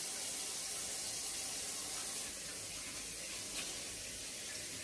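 Water running steadily from a tap into a sink while hands are washed under it.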